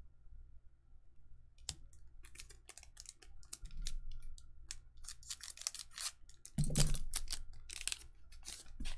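Weiss Schwarz trading cards being handled: a quick, irregular run of clicks and rustles as cards are flipped through and slid against one another, with a louder rustle and knock about seven seconds in.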